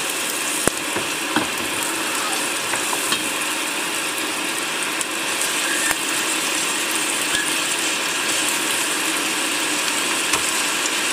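Hot oil sizzling and crackling steadily in a stainless steel pot as raw turkey leg pieces fry with onions and garlic, with a few sharp knocks as the meat is put in and turned with a wooden spatula.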